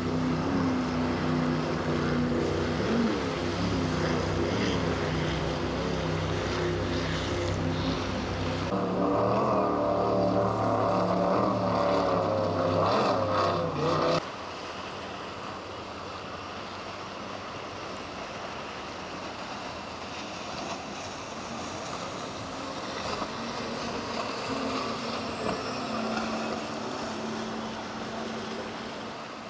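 Motorboat engines running, their pitch bending up and down; about 9 s in the sound jumps to a higher-pitched engine. About 14 s in it cuts suddenly to quieter wind and waves, with a faint engine hum coming back near the end.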